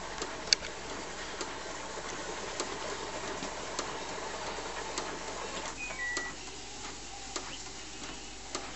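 HP Photosmart D5160 inkjet printer printing: the paper feed and print-head carriage run with a steady whirr and faint ticks. A brief high tone sounds about six seconds in.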